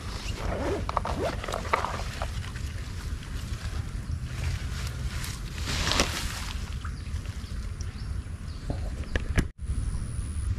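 Small river water sloshing and gurgling, with scattered clicks and rustles from handling close to the microphone. A louder rush comes about six seconds in, and a sharp click and a brief cut-out come near the end.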